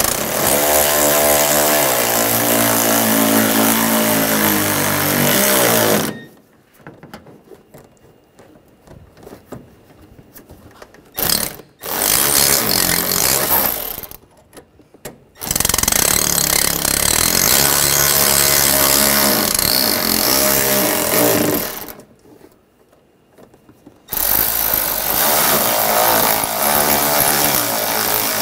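Cordless electric ratchet running in bursts as it drives bolts in: four runs of a few seconds each, plus a short blip about eleven seconds in. The motor's pitch falls as the first run winds down.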